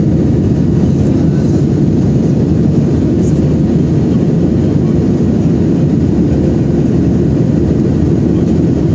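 Steady, loud cabin noise inside a Boeing 737-800 in flight: the deep, even rumble of the jet engines and the air rushing past the fuselage, heard through the cabin walls.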